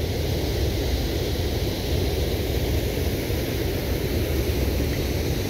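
Wind buffeting the microphone with a steady low rumble, over the even rush of shallow river water running over rapids toward a weir.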